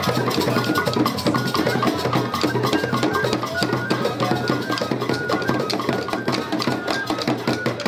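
Igbo traditional drum ensemble of tall wooden hand drums playing a fast, dense rhythm, with a line of short high notes stepping up and down above it.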